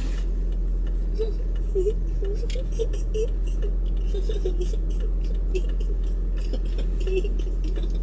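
Steady low hum of a car cabin, with short squeaky stifled giggles scattered throughout from the two people in the front seats.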